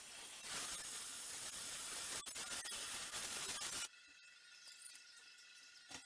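Oxy-fuel gas torch flame hissing loudly, cutting off abruptly about four seconds in.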